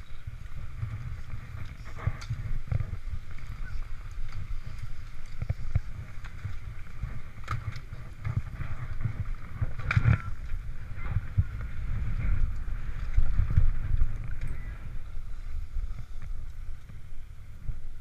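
Skis sliding and scraping over groomed snow, with wind rumble on a GoPro camera's microphone and a few sharp clicks of skis and poles knocking.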